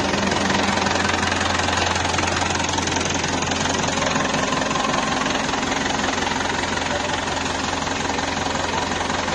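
TAFE Gajraj 5900 DI tractor's diesel engine idling steadily. Its low hum drops somewhat about four seconds in.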